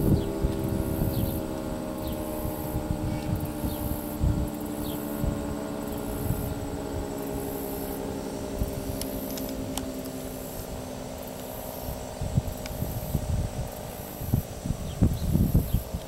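Federal Signal 3T22A three-tone outdoor warning siren winding down: its chord of tones slides slowly lower and fades away, near the end of a test run. Wind gusts on the microphone grow stronger toward the end, over a faint pulsing insect chirp.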